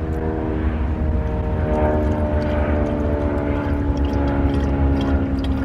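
Chrysler 300C's Hemi V8 idling steadily with the hood open: a low rumble under a steady hum.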